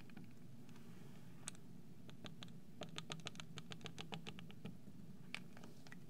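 Marker tip tapping on a glass lightboard while drawing dashed lines: a few single taps, then a quick run of short ticks at about six a second, with one more tap near the end.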